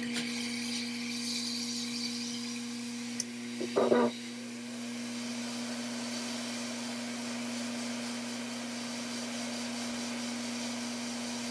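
Hot-air rework station's blower running steadily: a low hum with a hiss of air, while the BIOS chip is heated off a logic board. A brief clatter about four seconds in.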